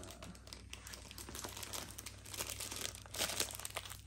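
Foil chocolate wrapper crinkling as it is peeled and twisted open by hand, in irregular crackles that are loudest a little past the middle.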